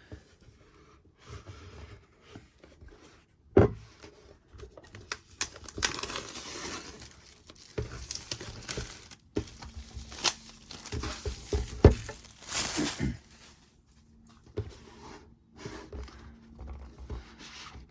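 Apple Magic Keyboard box being opened by hand: paper and wrapping tearing and crinkling, with irregular rustling and two sharp knocks as the box is handled.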